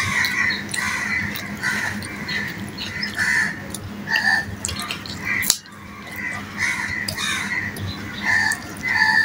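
Close-up eating sounds: wet chewing and lip smacks, with the squish of fingers kneading rice on a steel plate.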